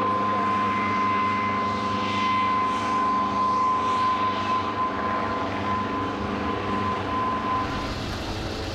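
Saab J 29 Tunnan's jet engine running as it taxis: a steady roar with a high whine, which stops near the end.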